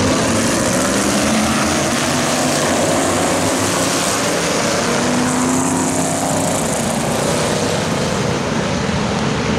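A pack of winged open-wheel race cars running together on the track, many engines at once, loud and steady.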